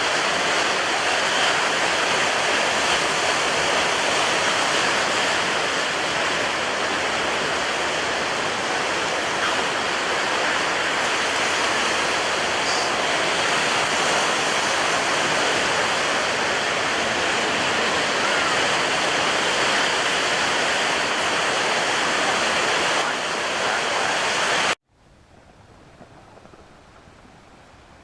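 Steady rushing of water, an even roar with no clear rise and fall of waves. About three seconds before the end it cuts off suddenly, leaving only a faint hiss.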